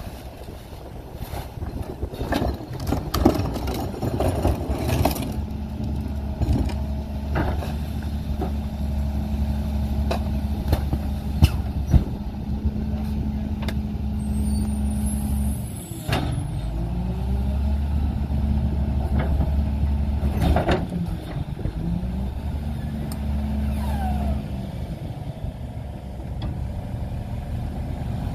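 A McNeilus rear loader's packer cycling on a Mack LE garbage truck. The diesel engine is held at raised speed to drive the hydraulics, with knocks and clunks as bags land in the hopper during the first few seconds. About halfway the engine note dips and air hisses, then the engine runs up again for the rest of the cycle and drops back near the end.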